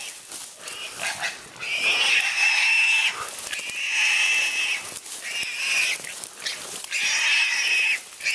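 Wild hog squealing repeatedly, about four long, high-pitched squeals of roughly a second each, as it is held by catch dogs.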